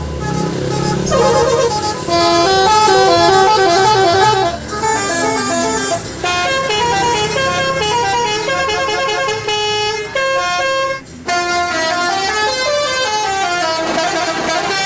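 Telolet horn of an odong-odong mini tourist train playing a fast melody of stepped notes, with a brief break about three-quarters of the way through.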